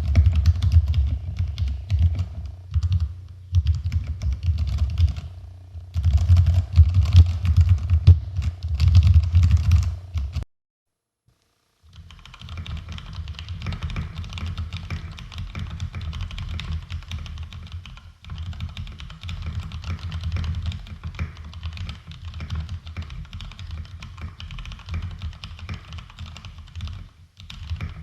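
Fast typing on an IKBC W210 mechanical keyboard with Cherry MX Brown switches lubed with Tribosys 3203 and filmed, and foam in the case and under the PCB: a dense run of keystroke clacks. It cuts to silence about ten seconds in, and the typing resumes quieter a second and a half later.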